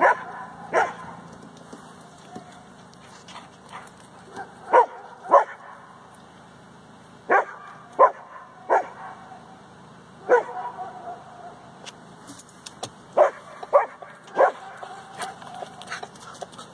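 A dog barking at a moose: single short barks at irregular gaps, about a dozen in all, with a few close pairs and triples.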